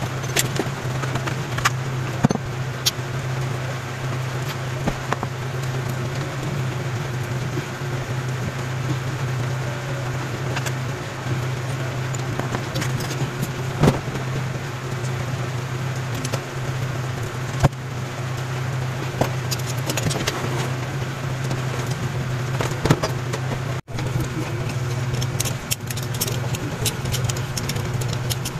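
A steady low mechanical hum with scattered sharp clicks and metallic clinks over it; the sound cuts out for an instant near the end.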